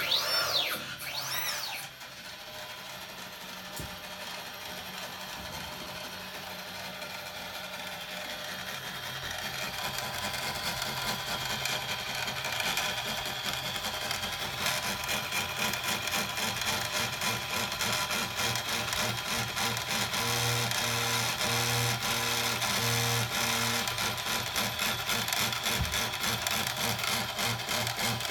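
CNC engraving machine working a granite plate, stepper motors whirring with a dense rapid ticking from the stylus. Two short whines sweep up and down in pitch at the start, then the running sound builds over the first ten seconds and holds steady.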